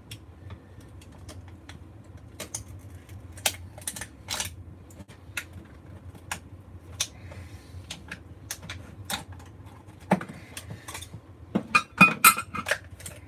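A screwdriver and small metal ballast parts clicking and tapping against each other and the wooden workbench as the ballast is pried apart. The clicks are irregular, with a louder flurry near the end, over a low steady hum.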